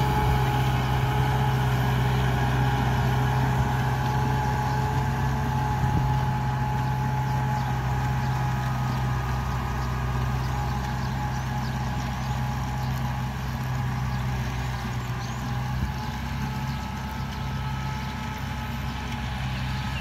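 Kubota M6040SU tractor's four-cylinder diesel engine running steadily while pulling a rotary tiller through the soil. It fades gradually as the tractor moves away.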